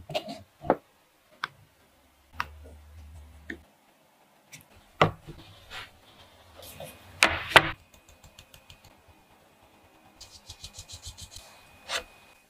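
Kitchen handling sounds: a silicone spatula scraping chocolate mousse against a stainless-steel mesh sieve, then scattered clicks and knocks of utensils and plastic dessert cups, with a quick run of light taps near the end. A faint, steady high tone comes in about halfway.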